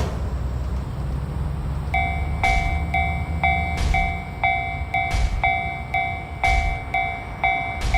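Train rumbling past with a clack about every second and a half. About two seconds in, a Japanese level-crossing alarm starts ringing its kan-kan bell, about two strikes a second.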